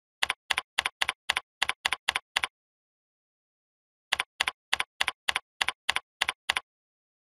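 Keystroke clicks of typing on a computer keyboard: two quick runs of about nine evenly spaced clicks each, about four a second, with a pause of about a second and a half between them.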